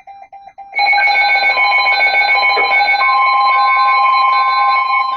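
Weather radio alert alarm: short electronic beeps, then, under a second in, a loud continuous multi-tone alarm with a repeating beep pattern, joined a little later by a steady warning tone. It signals an incoming weather warning.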